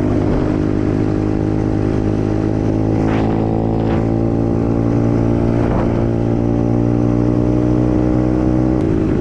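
125cc dirt bike's single-cylinder engine running at a steady speed while riding, its pitch holding even throughout.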